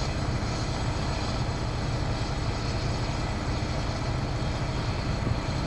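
A vehicle engine idling steadily, a low, even rumble.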